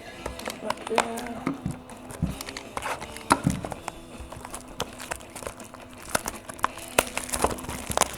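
A trading-card box and its packaging being handled and opened, with a run of crinkles, taps and sharp clicks, over steady background music.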